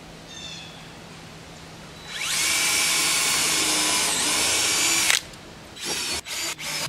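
DeWalt 20V cordless drill driving a screw into wooden wall framing. The motor spins up about two seconds in, runs steadily for about three seconds and stops suddenly, and a few short bursts follow near the end.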